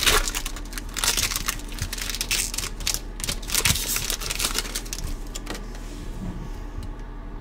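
Foil booster-pack wrapper crinkling and tearing as a Pokémon card pack is opened by hand, a dense crackle that dies down about five and a half seconds in, leaving the softer sound of the cards being handled.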